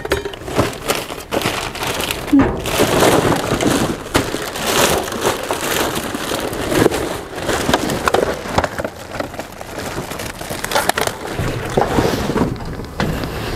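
Rummaging through trash: irregular rustling, crinkling and clattering of plastic bags, cardboard and loose objects being pushed aside and pulled out.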